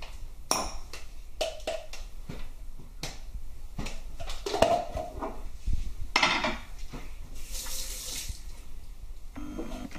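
A spoon scraping thick egg-yolk mayonnaise filling out of a plastic measuring cup and knocking against the cup and small bowls: a string of clicks, taps and scrapes, with a couple of longer scrapes in the second half.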